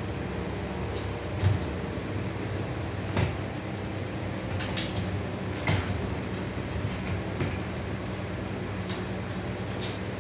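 Scattered clicks and knocks of photo gear being handled and unpacked, over a steady low hum.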